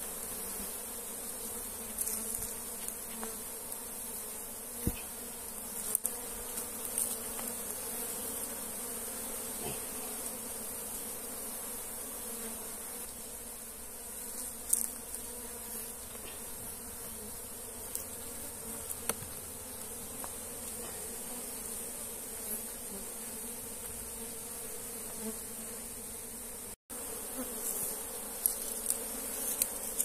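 A large colony of honey bees buzzing steadily, a constant hum around the opened log hive as the colony is disturbed by the honey harvest. Scattered short clicks and knocks from handling the comb sound over it, with a momentary break near the end.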